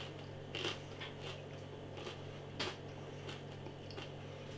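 Faint crunching and clicking of someone chewing a crispy breaded soya goujon with the mouth closed, over a steady low hum.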